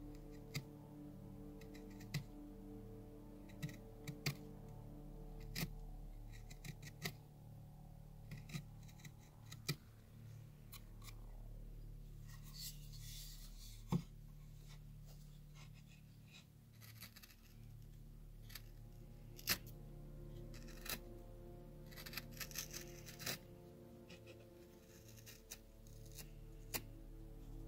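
Carving gouge cutting into cottonwood bark: short crisp snicks and a few longer scraping cuts, with a couple of sharper clicks, over quiet background music.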